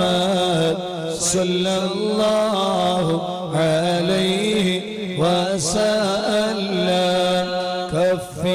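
Islamic devotional chanting: a voice sings long, winding melodic lines without clear words, over a steady low held drone.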